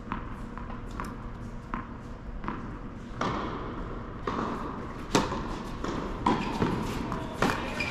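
Tennis ball bounced on an indoor hard court four times before a serve, then louder racket strikes on the ball as the serve and rally begin, each hit ringing in the large hall.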